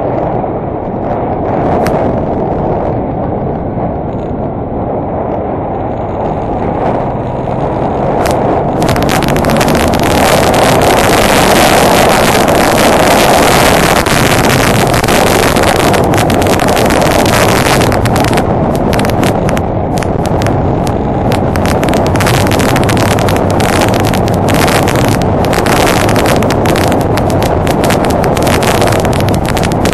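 Honda Deauville NT650V motorcycle's V-twin engine running under way. About nine seconds in, wind buffeting on the microphone rises and becomes a loud rushing hiss over the engine.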